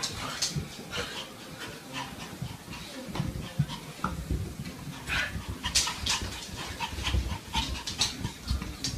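A dog making short, irregular sounds, one or two a second, with faint pitched traces among them.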